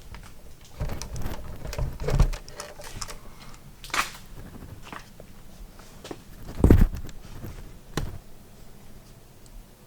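Handling noise: a scatter of knocks, taps and clicks, with a sharp click about four seconds in and a louder thump about two-thirds of the way through, as a handheld camera is moved and brought in close.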